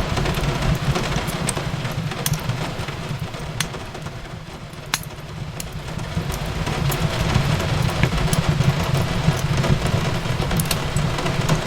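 Fireplace fire burning, with scattered sharp crackles and pops over a steady low rumble and an even hiss of gentle rain on a window. The whole bed eases a little in the middle, then comes back up.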